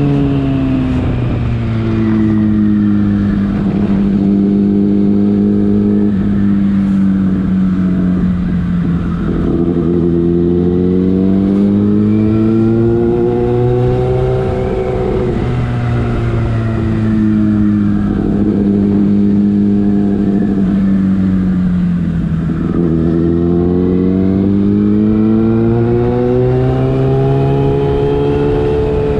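Yamaha FZ6's inline-four engine running through a Leovince aftermarket exhaust, its revs climbing and dropping several times with brief breaks in between, like gear changes while riding.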